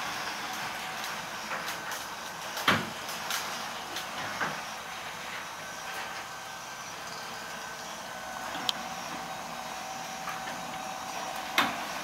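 Powered sectional garage door closing: a steady running noise with a faint whine in the second half, broken by sharp clunks of the panels and track, one about two and a half seconds in, a lighter one near the middle, and a last one near the end as the whine stops.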